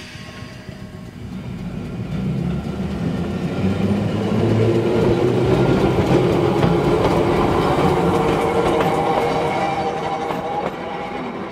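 A rail vehicle passing by: wheels rumbling and clacking over the rail joints, swelling to its loudest about midway, then fading away.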